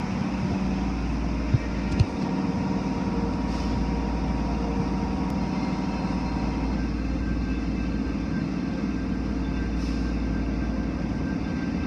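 Automatic car wash heard from inside the car: water spraying over the body and windows and the wash machinery running with a steady rumble and hum. Two sharp knocks about half a second apart come near the start.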